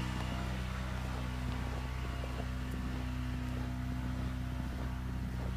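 A motor running with a steady low hum, with faint crunching footsteps in snow over it.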